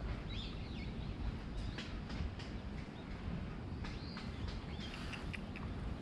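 Outdoor ambience: scattered short bird chirps over a steady low rumble.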